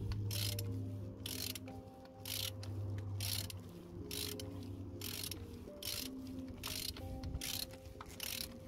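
Ratchet wrench with a 27 mm socket clicking in short repeated strokes, about two a second, as it unscrews the oil filter housing cap. Background music with sustained chords plays underneath.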